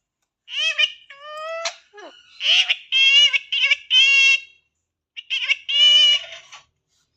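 Talking parrot mimicking words in a high-pitched voice, three short phrases with brief pauses between them.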